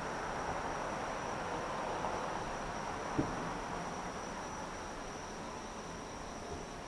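Steady high-pitched insect trilling over a low background hum, with a single short, dull thud from a distant firework burst about three seconds in and a fainter one near the end.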